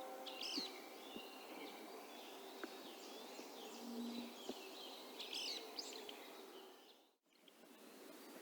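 Small birds chirping and calling in short, quick notes over a steady faint hiss of rain, with the last of a chime dying away at the very start. The sound drops out for about half a second around seven seconds in.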